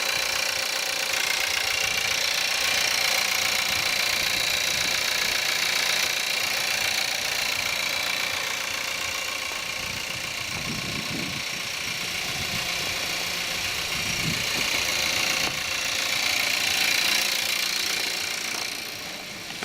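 Skoda Octavia 1.4 TSI turbocharged petrol four-cylinder running after a cold start in frost, with a diesel-like rattle and clatter.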